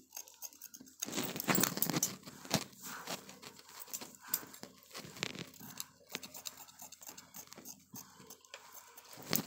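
Large steel tailor's scissors cutting through kameez lining fabric: a run of irregular snips as the blades close through the cloth.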